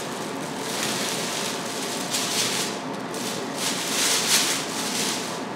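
Crinkling and rustling of kraft packing paper and a plastic bag being handled as a wrapped exhaust muffler is lifted out of a cardboard shipping box, with louder crackles about two and four seconds in.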